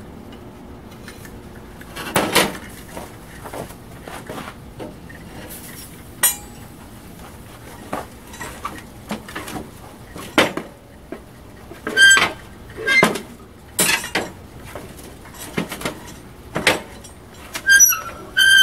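Metal tongs and the metal lid of a propane furnace knocking and clinking against steel: about a dozen separate clanks, some ringing briefly, coming closer together and louder toward the end as the lid is lifted off.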